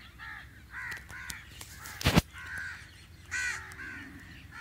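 Birds calling outdoors in a string of short, repeated calls, with a single sharp knock about two seconds in.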